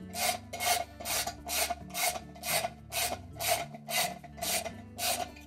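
Socket ratchet clicking in short rasping bursts, about two a second, as it is swung back and forth to drive in the bolts of a washer's new tub bearing and seal assembly.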